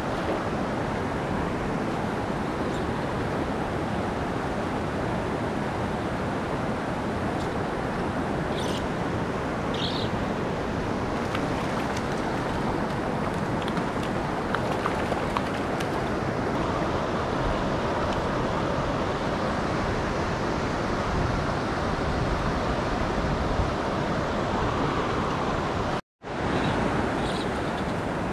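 Rushing water of a clear, rocky mountain trout stream running over riffles and boulders, a steady rush. It cuts out completely for a split second near the end.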